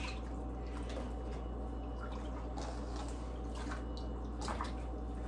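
Water dripping and splashing now and then as wet wig hair is dipped into a bowl of toning water and brushed through, over a steady low hum.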